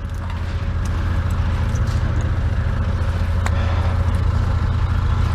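A vehicle engine idling close by: a steady low drone with a fast, even pulse.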